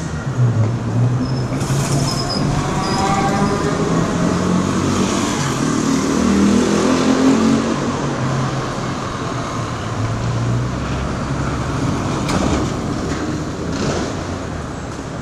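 City street traffic: a steady hum of traffic with vehicle engines running and passing, their pitch rising and falling. A brief high thin tone comes about two seconds in, and a couple of sharp knocks near the end.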